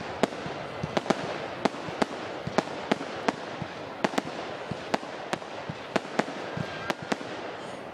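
Fireworks going off in a quick, irregular run of sharp bangs, about three a second, over a steady background noise.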